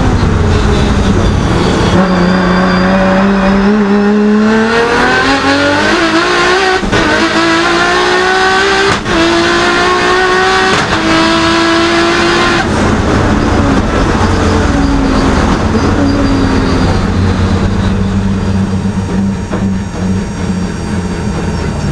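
Nissan Skyline R32 GT-R race car's engine heard from inside the cockpit, revving up through the gears with a short break at each of about three upshifts, then dropping in pitch as it comes off the power. It then runs steadier and lower.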